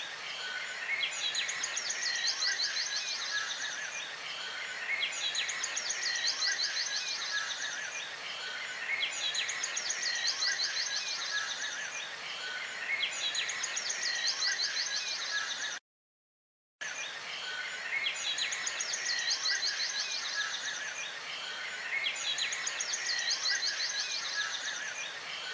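A high, fast trilling animal call, repeated about every four seconds over a steady high-pitched background chorus; the sound cuts out for about a second partway through and the same pattern starts again.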